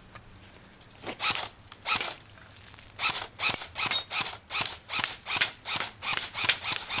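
JLS FN SCAR-L electric airsoft rifle firing single shots, each a short sharp snap: two spaced shots, then a steady string of about a dozen at roughly three a second.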